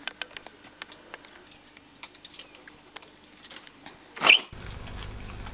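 Keys clicking and jingling in a door lock as a door is unlocked, with many small sharp metallic ticks. About four seconds in comes one short, loud squeak that rises and falls in pitch.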